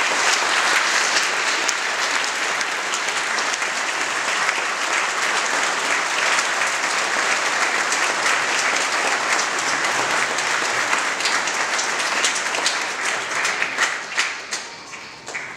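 Audience applauding steadily, thinning to scattered individual claps and dying away near the end.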